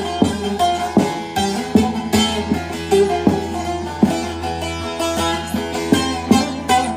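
Long-neck divan bağlama (saz) with a 44-stave red juniper bowl and spruce top, played with a plectrum: a run of plucked and strummed notes over ringing strings.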